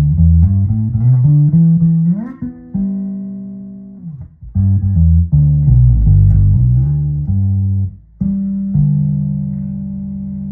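1977 Guild Starfire II electric bass played fingerstyle on the neck setting with the tone rolled off, giving a dark, rounded tone. It plays a run of notes, slides up about two seconds in and holds a note, plays another run, then lets a final note ring out near the end.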